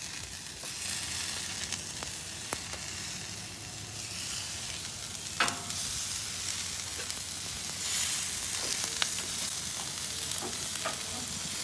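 Oiled, seasoned vegetable kabobs on metal skewers sizzling steadily on a flat-top griddle on low heat, with a few light clicks as more skewers are set down on the steel plate.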